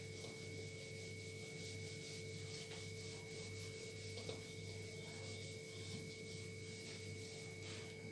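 Whiteboard being wiped clean by hand with an eraser, faint repeated rubbing strokes over the board surface, with a steady hum and a thin high whine underneath.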